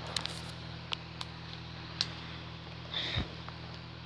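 Homemade slime squeezed and pressed by hand on a table: small sticky clicks and pops, then a longer, louder rushing squelch about three seconds in, over a steady low hum.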